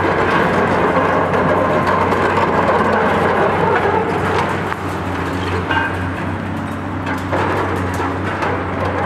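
Diesel engines of Cat high-reach demolition excavators running steadily under load, with continual crunching, cracking and clattering of concrete and steel as their tools break up the structure.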